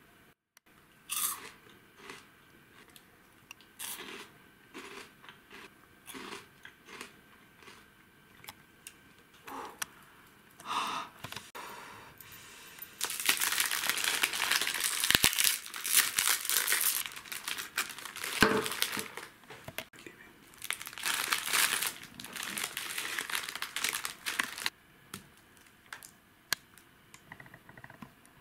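Crinkly plastic snack wrapper being handled and torn open: scattered crackles and taps at first, then about twelve seconds of dense crinkling that stops abruptly near the end.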